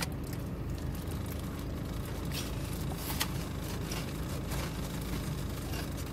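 Steady low hum and rumble inside a car's cabin, with a few faint clicks and crinkles of a sandwich's plastic wrap and chewing.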